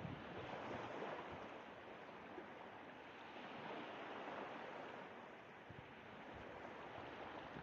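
Sea waves washing in on the shore: a soft, steady rush that swells and eases slowly.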